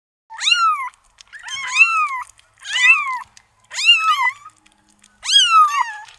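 Kittens mewing: about five high-pitched mews, roughly one a second, each rising and then falling in pitch.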